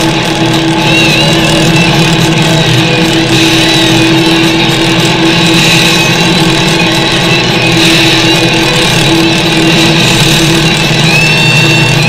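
Harley-Davidson Street Glide's V-twin engine running steadily while riding along, heard from on the bike.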